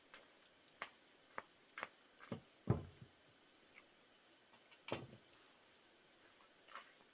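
Scattered irregular knocks and taps, the loudest a dull thud just under three seconds in and another about five seconds in, over a faint steady high whine.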